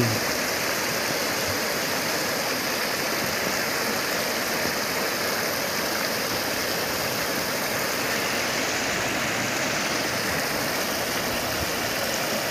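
Muddy floodwater rushing in a strong current over a submerged road: a steady, unbroken sound of flowing water.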